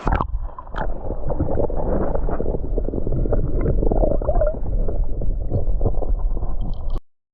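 Strong wind buffeting the microphone: a loud, low, fluttering rumble that cuts off abruptly near the end.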